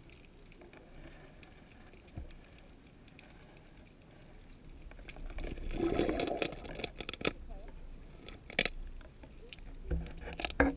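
Muffled underwater noise, low and even at first. A louder muffled stretch comes about six seconds in, and a few sharp clicks follow.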